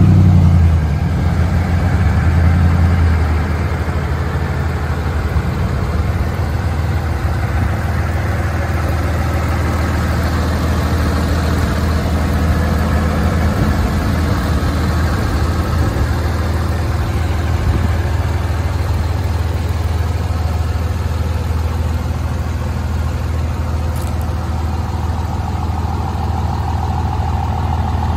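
A 2005 Ram 3500 dually pickup's engine idling steadily, louder for the first few seconds and then a little softer.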